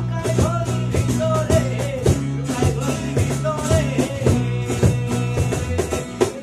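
Acoustic band playing a song: two strummed acoustic guitars over a bass guitar line, with a cajón keeping a steady beat and a voice singing the melody.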